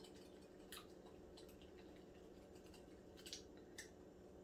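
Wire whisk stirring lemon curd in a glass bowl, the whisk tapping faintly against the glass: a handful of scattered light clicks, otherwise near silence.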